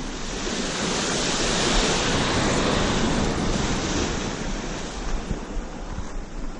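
Ocean surf breaking against lava rocks, a wash of water that swells over the first few seconds and then eases off.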